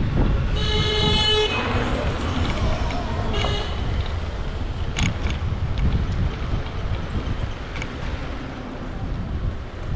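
A vehicle horn honks once for about a second, followed about three and a half seconds in by a second, shorter and fainter honk, over a steady low traffic rumble.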